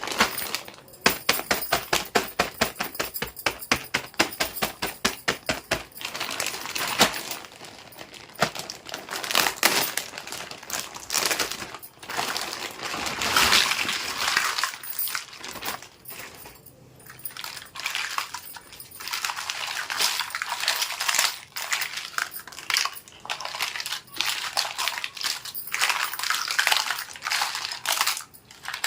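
Small hard plastic toy pieces being handled during an unboxing: a quick, even run of clicks, about five a second, for the first few seconds, then irregular clicking, clattering and rustling.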